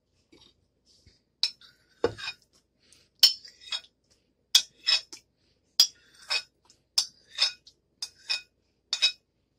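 A metal spoon clinking against ceramic and glass bowls while scooping pieces of set jelly from one bowl into another. There are a dozen or so sharp clinks, many in pairs about a second apart.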